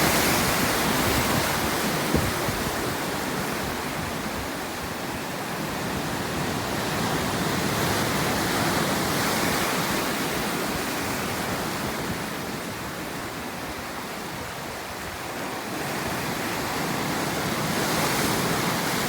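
Sea waves breaking and washing up on the shore, a steady rush that swells and fades slowly as each wave comes in, roughly every ten seconds.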